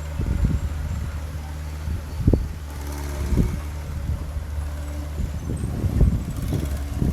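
Diesel engine of heavy earthmoving machinery running steadily, with several short knocks and a louder cluster of them near the end.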